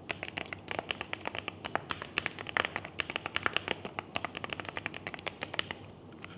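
Typing on a Galaxy100 mechanical keyboard with Gateron Quinn switches and Loga Tuktuk keycaps: quick, uneven keystroke clacks, several a second.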